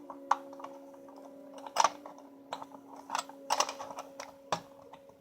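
Irregular clicks and knocks of small tinplate toy-train parts being handled and fitted together by hand, over a steady low hum.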